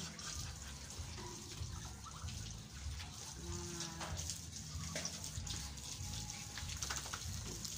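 Water spraying steadily from a garden hose onto piglets and the wet floor of their pen, hosing them down to cool them in the heat.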